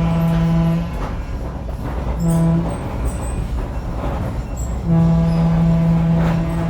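Heritage train's locomotive horn sounding a long blast, a short blast, then another long blast, the closing pattern of a grade-crossing signal, over the low rumble of the train running.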